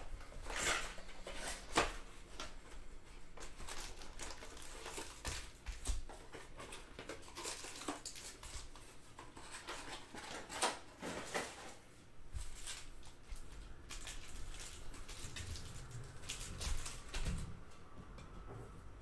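Trading cards and their foil pack wrappers being handled: irregular crinkling, rustling and light clicks as packs are opened and cards slid through the hands.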